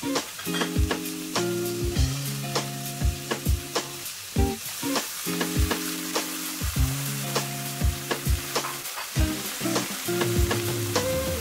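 Minced pork sizzling in a nonstick wok while a spatula stirs it, clicking and scraping against the pan many times. Water is poured in about halfway through. Soft background music with held notes plays underneath.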